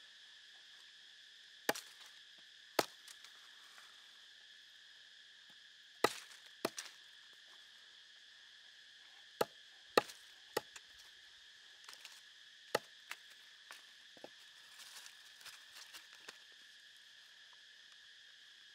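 A knife chopping a green plant strip against a wooden log: about ten sharp, separate chops at irregular intervals, some in quick pairs. Insects buzz steadily in the background.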